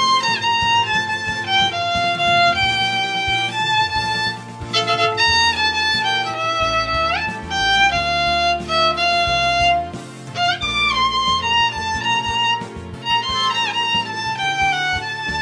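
Violin playing a lyrical melody line, with a few quick slides between notes, over a backing track with a bass line and a beat.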